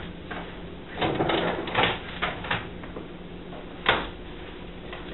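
Paper backing being pulled off a sheet of faux granite adhesive counter film and handled, rustling and crinkling in bursts, with a single sharp click or tap a little before the end.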